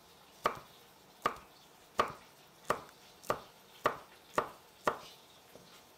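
Kitchen knife chopping on a wooden cutting board: eight sharp knocks, gradually quickening from under one a second to about two a second, stopping about five seconds in.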